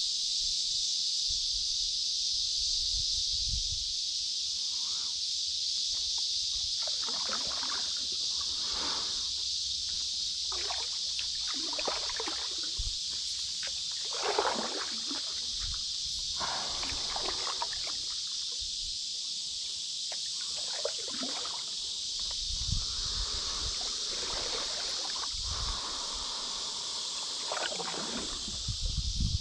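Stand-up paddleboard paddle strokes in calm river water: the blade dips and splashes about every one to two seconds, over a steady high-pitched hiss.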